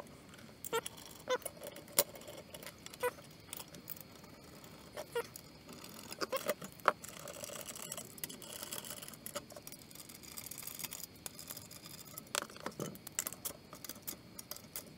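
Scattered light clicks and clinks of powder-coated metal brackets and bolts being handled and fitted together by hand, with soft rustling in the middle.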